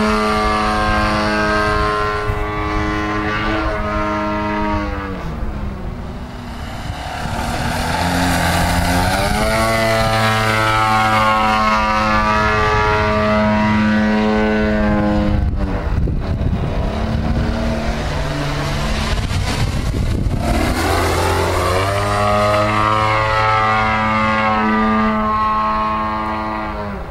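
DLE 55 single-cylinder two-stroke gasoline engine and propeller of a radio-controlled aerobatic plane in flight, its pitch rising and falling as the throttle is worked. It holds at high power, drops back about five seconds in, opens up again, drops to a low drone around sixteen seconds, then climbs back up to high power.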